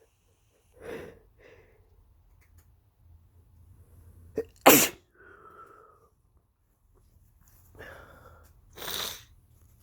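A man sneezing twice while ill, which he suspects is flu: the first, loudest sneeze comes about four and a half seconds in and the second near the end, each after a breath in.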